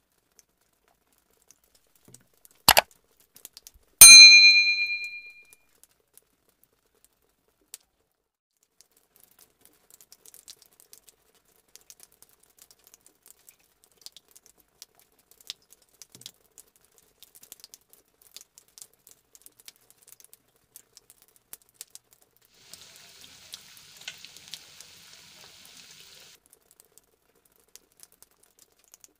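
Two quick taps, then a single sharp clink that rings briefly, as a metal spoon strikes the dish. Faint crackling of hot frying oil follows, with a short burst of sizzling near the end.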